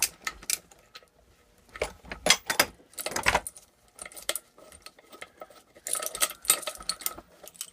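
Irregular metallic clinks and knocks from hand tools and a pulley puller being handled and worked on a small engine's shaft, some ringing briefly.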